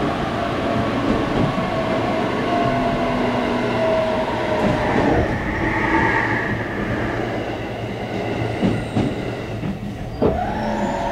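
Running noise heard inside a JR Kyushu 817-series electric train as it slows for a station: wheels on the rails under a motor whine that falls in pitch about four to five seconds in. Another train passes close alongside on the next track, and a fresh whine starts near the end.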